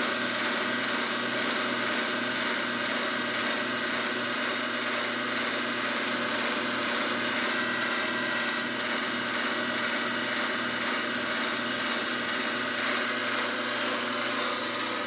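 Milling machine running with its end mill climb-cutting a slot in a metal block: a steady spindle whine mixed with the sound of the cutter taking chips, over a low pulsing hum.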